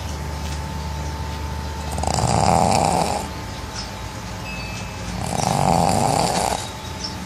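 Pug snoring in its sleep: two long snores, each well over a second, about three seconds apart.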